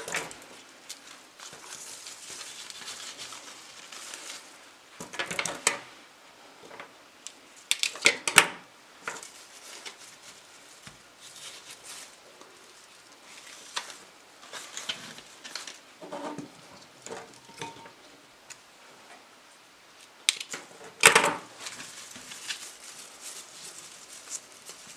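Flower stems and leaves rustling as they are handled and pushed into floral foam, with a few sharp snips of pruning shears cutting stems: loudest near the start, about 5 and 8 seconds in, and about 21 seconds in.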